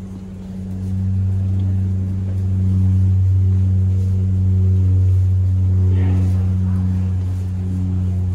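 Steady low hum of a Boeing 737-800's jet engines heard inside the cabin, with a deep droning tone and its overtones, growing louder about a second in.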